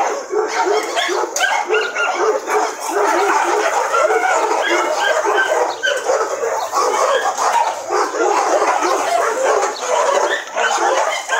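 Many dogs barking and yipping at once: a dense, continuous chorus of short overlapping barks.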